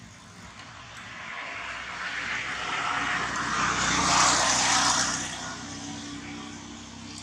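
An aircraft passing overhead: its engine noise swells over a few seconds, is loudest about four to five seconds in, then fades away.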